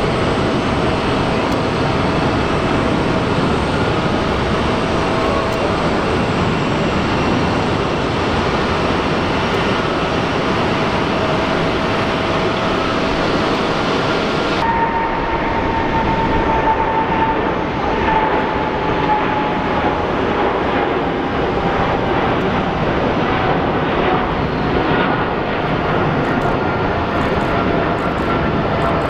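Jet airliner engine noise, a steady rush with a faint engine whine. About halfway through the sound changes abruptly, and a whine then slowly falls in pitch.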